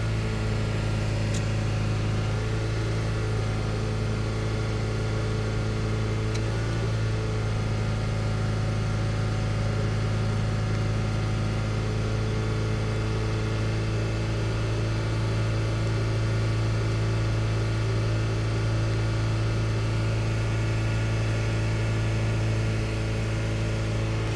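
Vauxhall Meriva petrol-car engine idling steadily at normal running temperature after a thermostat change, while it is run up to see the radiator cooling fan cut in.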